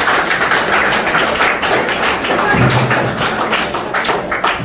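Audience applauding: a dense round of many hands clapping at once.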